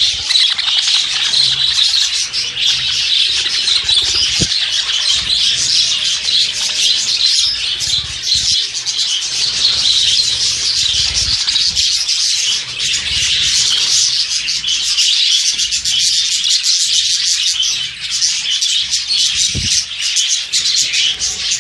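A crowd of small caged birds, budgerigars among them, chirping and chattering all at once in a dense, continuous din.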